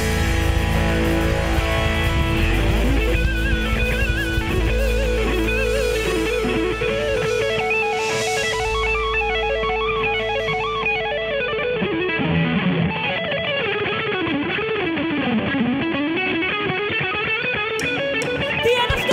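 Live band instrumental passage led by a lead guitar playing a solo of bent, wavering notes. The bass and drums fall away about two-thirds of the way through, leaving the guitar lines more exposed.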